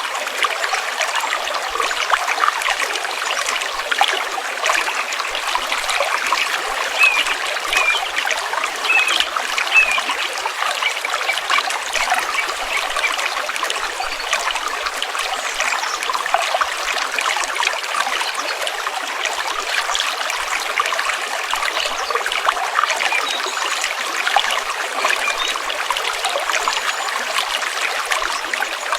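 Stream water flowing steadily, with a constant trickling and splashing.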